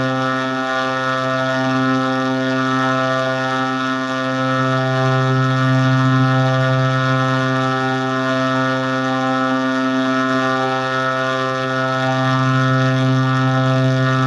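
A steady low droning tone, rich in overtones, holding one pitch with slow, gentle swells in loudness.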